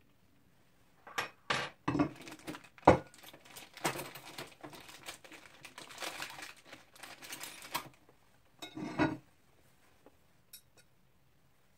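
Small metal screws and fittings from an assembly kit clinking and rattling as they are handled and sorted, with a sharp knock about three seconds in and another short clatter near the end.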